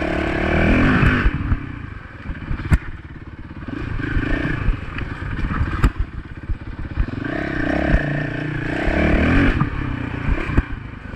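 Small Honda dirt bike's engine running on a trail ride. It revs up at the start and again about eight seconds in, easing off in between, with sharp knocks and rattles scattered throughout.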